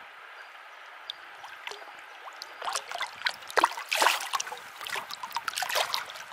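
Steady flow of creek water, then from about two and a half seconds in a brown trout thrashing in a landing net at the surface, making a quick run of sharp splashes that is loudest near the middle.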